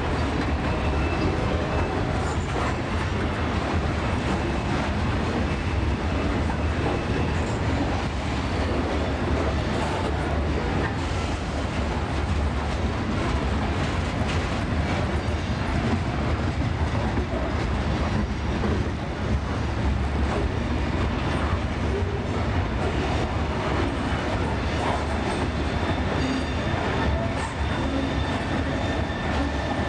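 Steady rumble of a CSX ballast train's hopper cars rolling past close by, steel wheels on the rails.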